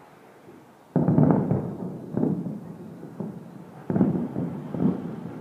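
Aerial fireworks shells bursting at a distance. A sudden cluster of booms comes about a second in, then four or so more bangs follow, each trailing off in a rolling echo.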